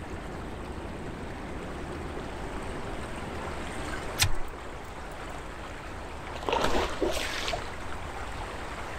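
River water flowing steadily around a drift boat. There is a sharp knock about four seconds in, and a brief louder rush of noise a couple of seconds later.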